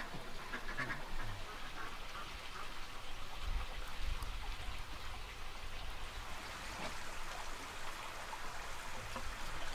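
Steady patter of light rain, with a duck quacking briefly near the start.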